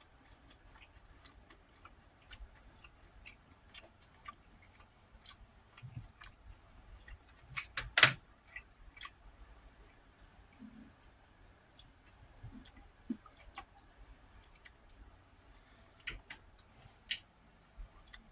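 Close-miked eating: a person chewing food with scattered small mouth clicks and ticks, and one much louder sharp click about eight seconds in.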